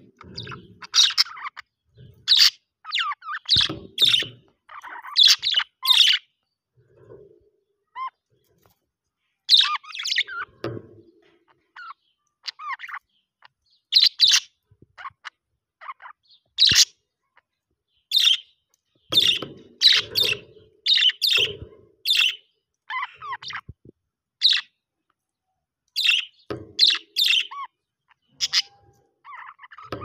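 Budgerigars chirping and chattering in short, quick clusters of high notes, with pauses of a second or two between clusters.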